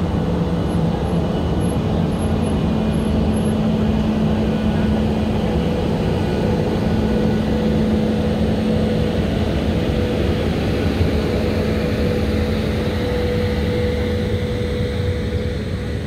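WAP-5 electric locomotive pulling a passenger train slowly out of the station: a steady mechanical hum with a low and a higher steady tone and no horn, as the locomotive and then the coaches pass.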